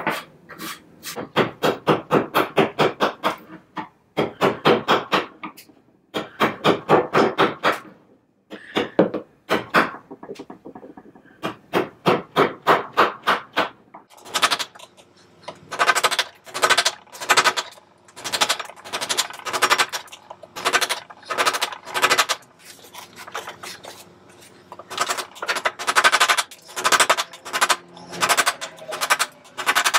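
Hand file or rasp shaping a block of new wood, worked in quick back-and-forth strokes, several a second, in bursts with short pauses between. About halfway through the strokes turn brighter and scratchier.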